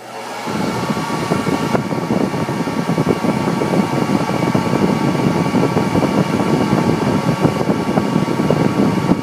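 Handheld hair dryer switched on with a click and running steadily at full blast, its motor and fan producing a loud rush of air, aimed at a fidget spinner to spin it up.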